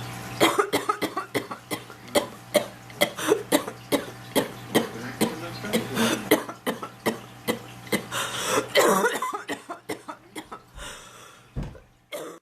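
A woman's coughing fit: a long run of short, hard coughs, about two or three a second, easing off after about nine seconds into a few weaker coughs. The cough comes with a sore chest and throat from her illness.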